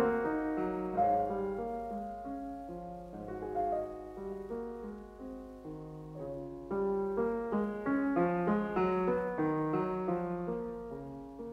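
Background piano music: a steady run of single notes and chords that grows louder and busier about seven seconds in.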